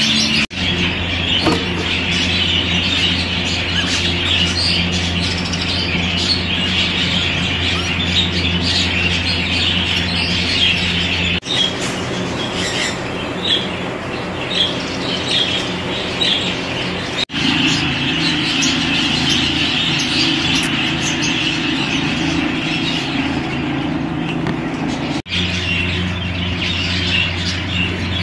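Exhibition budgerigars chattering continuously, a dense run of chirps and warbles over a steady low hum. The sound drops out abruptly for an instant a few times.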